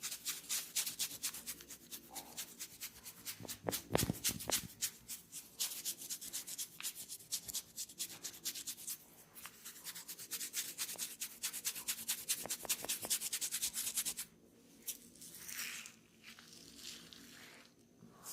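Hands rubbing quickly over skin and hair in a head massage, a dense run of scratchy strokes several times a second, with a dull thump about four seconds in. The rubbing stops near the end, leaving it quieter with a soft swish.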